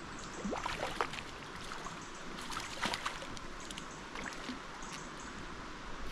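Irregular splashing as a hooked brown trout is played to the landing net in a shallow river, over the steady rush of flowing water. The sharpest splashes come about a second in and again near the middle.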